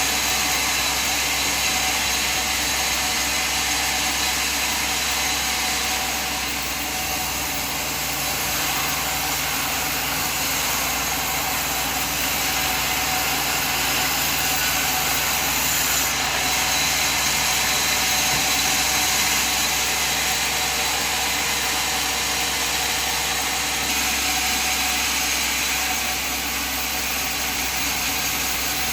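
Sawmill machine running steadily, a continuous motor drone with a hiss over it and no breaks.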